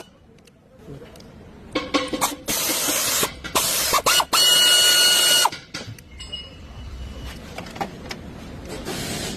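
Several hard bursts of hissing pressurised air, some carrying a thin whistle, from about two seconds in until about five and a half seconds in, then a quieter steady hiss.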